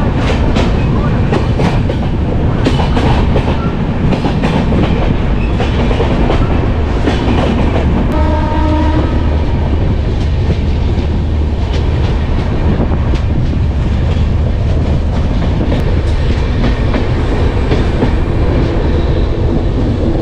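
Passenger train running: a steady heavy rumble with wheels clicking over rail joints. A horn sounds briefly about eight seconds in.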